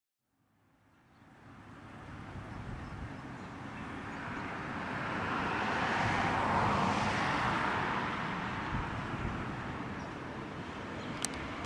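A vehicle passing by: a broad rushing noise without any whistle or horn tone that fades in, swells to its loudest about six or seven seconds in, then slowly eases off. A single sharp click comes near the end.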